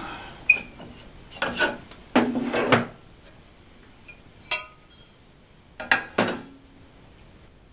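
Aluminium plate, cast aluminium housing and steel C-clamps being handled and set down: a handful of separate metallic clanks and knocks, a few of them ringing briefly.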